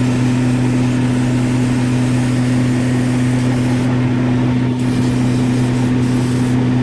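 Concrete truck's diesel engine idling, a steady unchanging drone.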